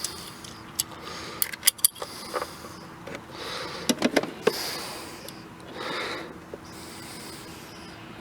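Small sharp clicks and handling noise as a freshly crimped spade clip on the speaker wire is worked onto a car door speaker's terminal, several clicks in quick succession.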